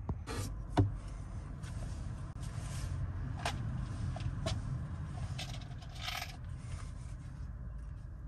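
Handling noise of small hard parts: a few sharp clicks and knocks, the loudest about a second in, and a short scrape about six seconds in, over a low steady rumble.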